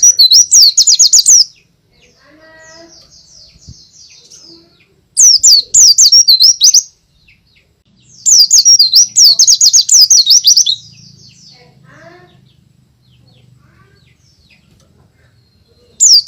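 White-eye (pleci, Zosterops) singing loudly in three bursts of rapid, high chirping, each lasting a second and a half to about three seconds, with quiet gaps between them. Fainter, lower bird calls sound in the gaps.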